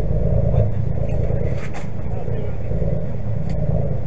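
Fishing boat's inboard engine running steadily, a low rumble, with a couple of light knocks from work on deck.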